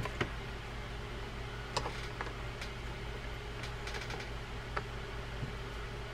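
A few light, scattered metal clicks as the metal handle is fitted onto the handle shaft of a Maxel Hybrid 20L lever-drag fishing reel, over a steady low hum.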